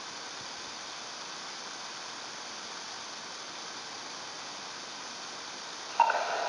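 Steady hiss from a Uniden handheld scanner between radio transmissions. Near the end a transmission opens abruptly through the scanner's speaker with a sudden loud burst.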